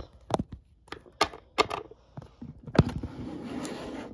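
Hard plastic toy figure being handled, giving a few sharp clicks and taps. A rustling hiss follows in the last second.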